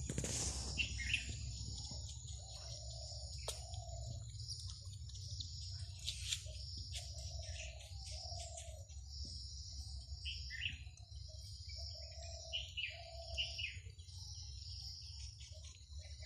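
Outdoor wildlife ambience: short high chirping calls and a low note repeated again and again, over a steady high insect drone that breaks off now and then.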